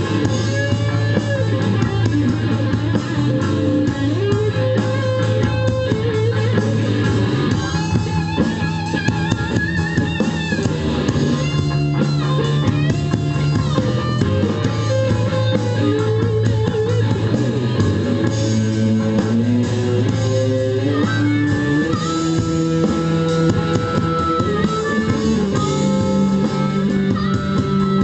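Blues band playing an instrumental passage: an electric guitar lead line with bent notes over bass guitar and drums.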